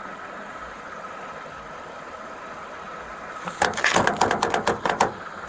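A car engine idles steadily. About three and a half seconds in comes a quick, irregular run of sharp knocks on the car's window glass, about eight to ten in a second and a half.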